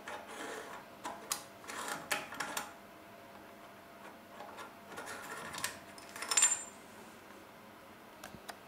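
Steel T-nut on a threaded stud sliding and clicking in a freshly milled T-slot, metal scraping and tapping on metal. The loudest clink, with a brief high ring, comes about two-thirds of the way through as a steel clamp goes onto the stud.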